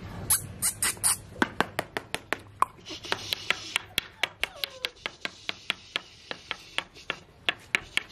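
Pakistani bully puppies' claws clicking and scraping on a concrete floor as they get up and scramble about, a quick irregular run of sharp taps, several a second.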